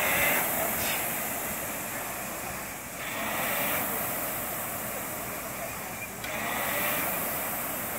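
Several air-flywheel rowing machines being rowed together: a whooshing rush from the fans that swells with each drive stroke, about every three seconds.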